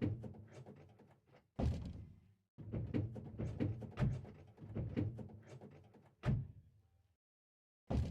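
A series of knocks, thumps and rattles, as of hard objects being handled and struck, in short clusters with sharp hits at about 1.6, 4, 6.3 and 8 seconds in, separated by dead silence.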